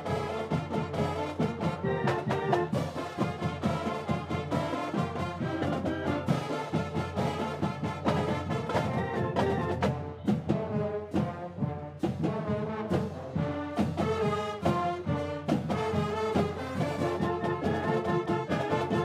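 A marching band playing a loud, brass-heavy tune, with saxophones, trumpets, trombones and sousaphones over a steady drum beat.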